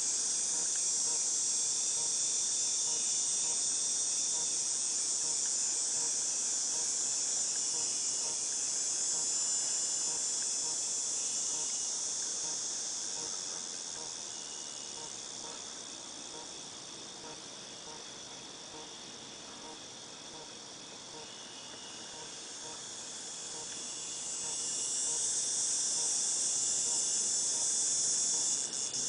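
Cicadas buzzing in chorus, a steady high-pitched drone that dies down over the middle and swells back up near the end. Fainter short chirps repeat underneath.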